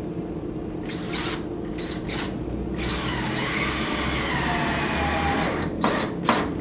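Drill with a square-drive bit driving a trim head screw into a pre-drilled hole, so that the screw head countersinks itself. A few short trigger bursts, then about three seconds of steady motor whine that shifts in pitch, then two more short bursts near the end.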